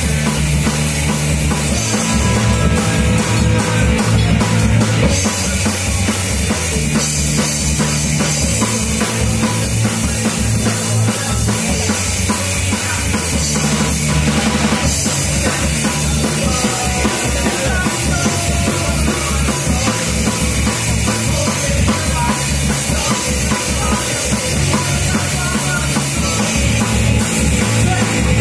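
Live rock band playing loud: a drum kit keeping a steady beat over bass guitar and electric guitar.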